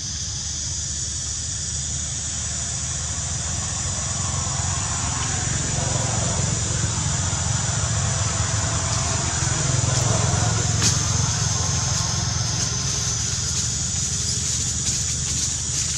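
Outdoor background noise: a steady high hiss over a low rumble that grows louder through the middle and eases off toward the end, with no clear animal calls.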